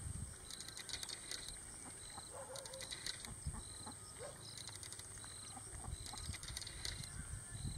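Domestic ducks dabbling and foraging with their bills in mud and shallow water, a soft irregular low pattering and rustling. Over it run a steady high whine and short high chirps that repeat about once a second.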